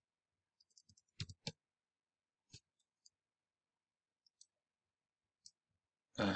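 Faint computer mouse and keyboard clicks: a quick pair about a second in, then scattered single clicks, with a louder, longer noise right at the end.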